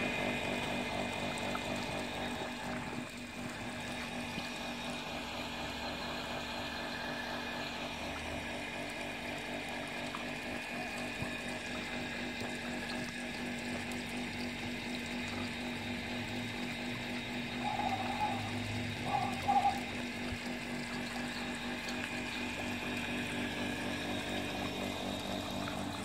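Water running from a garden hose into a muddy puddle, over a steady mechanical hum. Two short calls from the poultry come about two-thirds of the way through.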